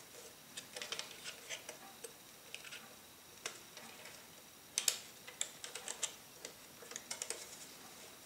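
Light, irregular clicks and taps of metal and plastic from hands handling an old Kodak folding camera and its film spool fittings, with the sharpest click about five seconds in and quick runs of ticks after it.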